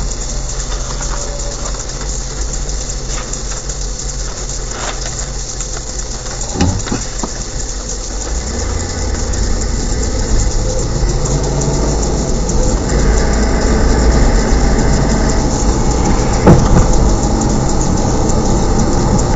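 Car road and engine noise heard from inside the cabin as the car pulls away and picks up speed, a steady rumble that grows louder from about eight seconds in. A couple of short knocks stand out, the loudest near the end.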